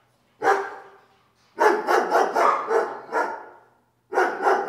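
Dog barking: a single bark, then a quick run of several barks, then more barks near the end.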